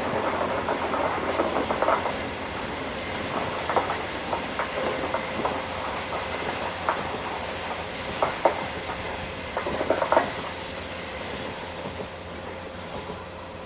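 Passenger train of 25T coaches, hauled by an SS8 electric locomotive, running past, its wheels clacking irregularly over the rail joints over a steady rumble. The sound fades away in the last few seconds.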